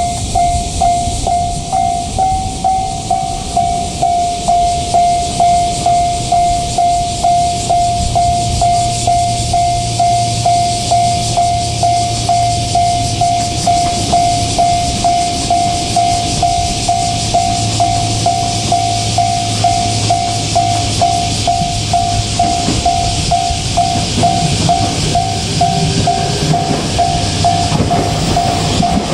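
Japanese level crossing warning bell ringing, one pitch repeated in an even, steady rhythm, over a continuous high hiss. A low rumble builds near the end as the train approaches.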